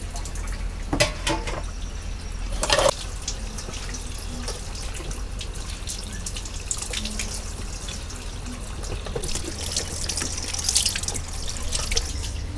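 Water dripping and splashing as eggplants are rinsed by hand, with two sharp knocks in the first three seconds.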